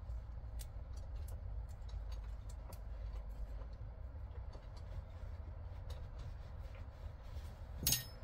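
Low steady rumble with scattered light clicks and taps, then a short loud clatter near the end.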